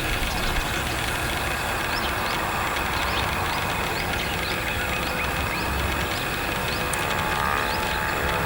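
A motor vehicle's engine running steadily at the roadside, with a bird's short, high rising chirps repeating about twice a second.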